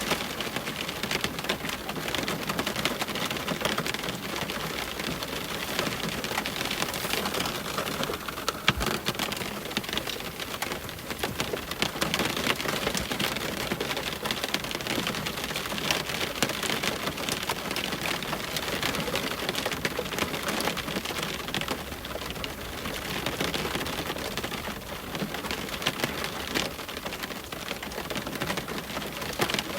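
Heavy rain on a window: a steady, dense hiss of countless small drop ticks, with one sharper tap about nine seconds in.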